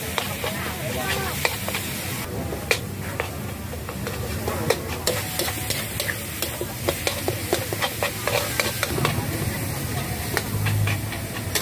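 Metal ladle scraping and clanking against a wok as minced pork with chillies and garlic is stir-fried without oil, over a steady sizzle. The ladle strikes come irregularly, several a second.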